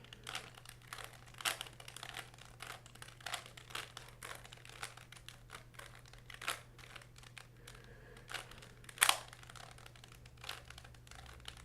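Plastic clicks and scrapes of a Rubik's-type twisty puzzle being turned by hand in quick, irregular twists, with one sharper click about nine seconds in.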